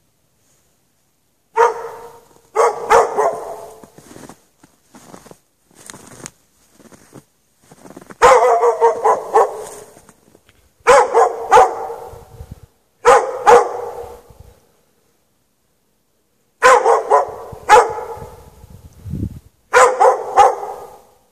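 A dog barking in short bouts of a few barks each, with gaps of one to three seconds between bouts and fainter barks in between.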